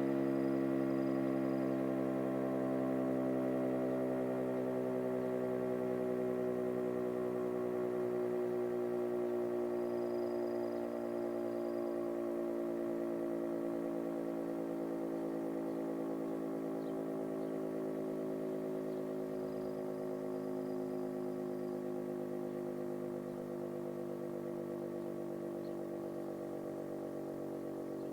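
Federal Signal RSH-10A Thunderbeam siren winding down: its steady tone sinks slowly in pitch and grows gradually quieter as the rotor coasts to a stop after the test.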